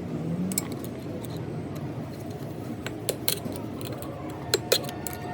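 Scattered sharp metallic clinks and taps of metal tools or parts being handled, about eight in all, with the loudest pair near the end, over a steady low background hum.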